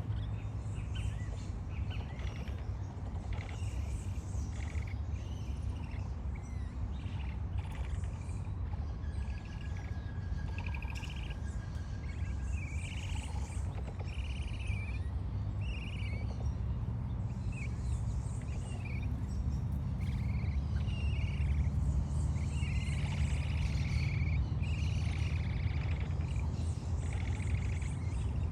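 Capybaras giving repeated short, high chirping calls, some of them buzzy, coming more thickly in the second half, over a steady low rumble.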